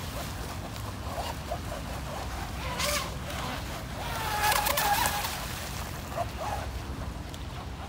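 Radio-controlled model boat running on a pond, with its wake sloshing, over a low steady rumble and distant voices. It briefly gets louder about three seconds in and again between about four and five seconds.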